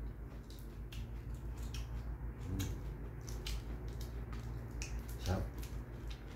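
Crisp iceberg lettuce being torn by hand and chewed: scattered short, crisp snaps and crunches over a steady low hum.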